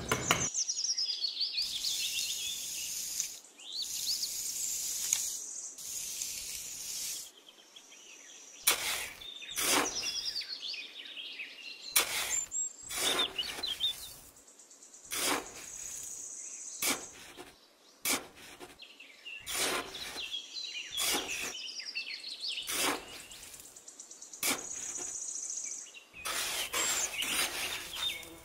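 A small hand trowel scraping and scooping damp sand in repeated short strokes, with birds chirping.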